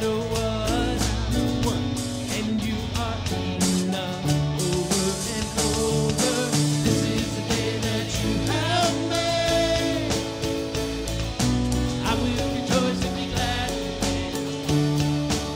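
Live worship band playing a song: acoustic and electric guitars with drums and a lead singer's voice.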